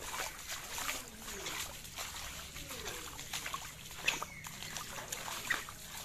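Splashing and sloshing of water, like steps wading through floodwater, with a few faint falling cries in the background.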